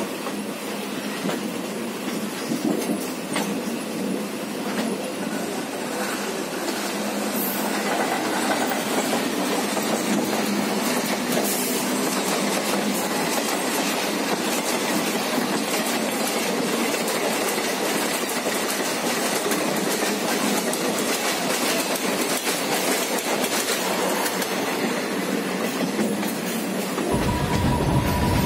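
Running noise of a moving passenger train, heard from an open coach door: wheels clattering over rail joints and points, with a steady rush of wind and rolling noise that grows a little louder about a quarter of the way in.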